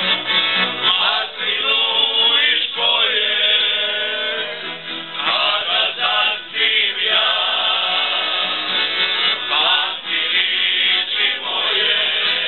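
Several voices, mostly men, singing a folk song together to accordion accompaniment.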